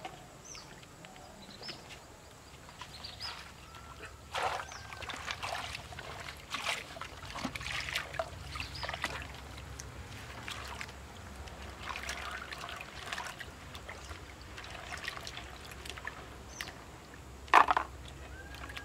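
Hands washing and rubbing food pieces in a metal pot of water standing in a shallow stream: irregular sloshing and splashing, with one louder splash near the end.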